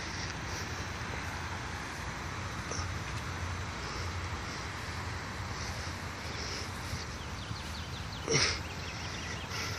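Steady low outdoor rumble, with one short animal yelp that rises quickly in pitch about eight seconds in.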